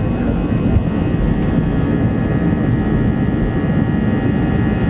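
Airbus airliner's twin jet engines at takeoff thrust, heard from inside the passenger cabin as a loud, steady rumble with a whine of steady tones over it, while the aircraft lifts off and climbs.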